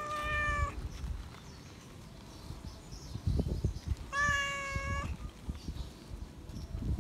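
A feral tabby cat meowing loudly for attention: one meow trails off just after the start, and a second steady, drawn-out meow comes about four seconds in.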